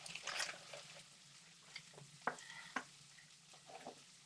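Black pudding and bacon frying in a pan with a faint, steady sizzle, while a wooden spatula stirs and knocks against the pan a few times with sharp taps.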